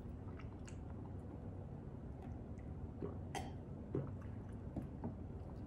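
Faint mouth sounds while eating and drinking from a tumbler: a few soft clicks over a low steady hum.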